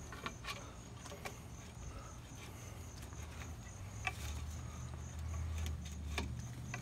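Faint clicks and small knocks of the Talon anchor's spike and retainer parts being handled and slid into the aluminium shaft. A low rumble on the microphone builds from about four seconds in.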